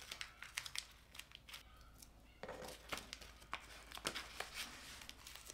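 Dry nori seaweed sheets crinkling and crackling faintly as hands fold them around rice balls, a scatter of short crisp crackles.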